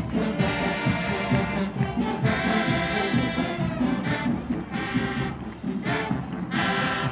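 Marching band playing: loud brass phrases over a steady drumline beat, with short breaks between phrases about four and six seconds in.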